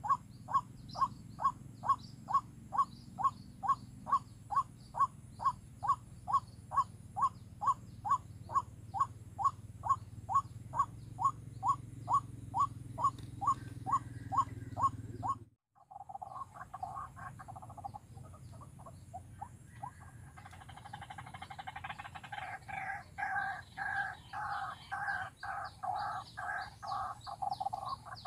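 White-breasted waterhen calling: a long, even run of repeated notes, about two a second. About halfway it breaks off and a faster, two-pitched series of calls starts and grows louder, over a low rumble.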